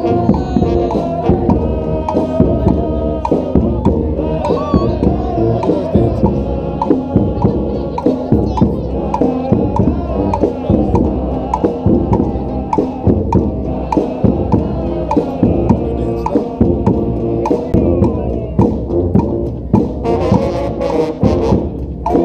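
Brass street band playing a tune: brass horns holding melody lines over a steady drumbeat.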